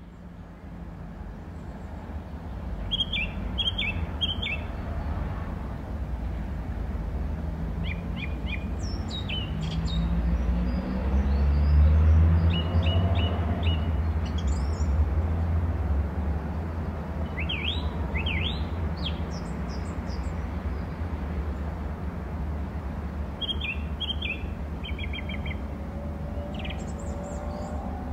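Small birds chirping in short, repeated phrases every few seconds, over a steady low rumble that swells near the middle.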